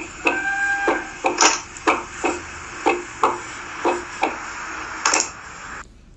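Recorded heart sounds played as a teaching example: a run of short knocks over a steady hiss, some falling in close pairs like S1 and S2. A faint high tone sounds briefly near the start.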